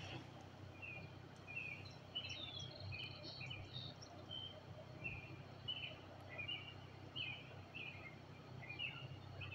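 Several birds chirping and calling from the trees: short high chirps, a few each second, overlapping at times, kept up throughout.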